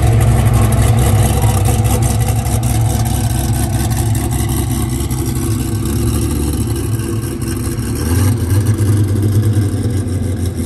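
Hennessey Venom F5's twin-turbo V8 running at low revs as the car pulls away slowly, its low drone fading as it moves off, then swelling louder again about eight seconds in.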